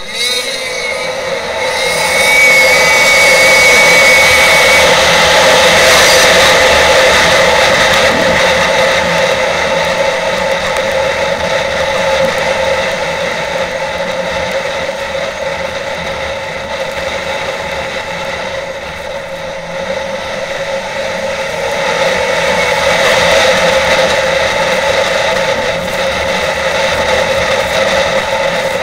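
Snowmobile engine running along the trail, heard from on board the sled. It holds a steady pitch, grows louder about two seconds in, eases off a little just before twenty seconds, and picks up again shortly after.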